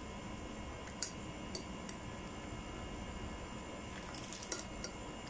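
A metal spoon stirring and pressing cabbage into a pot of bulalo broth, with light clinks of the spoon against the pot about a second in and a quick cluster of them near the end, over a steady background hum.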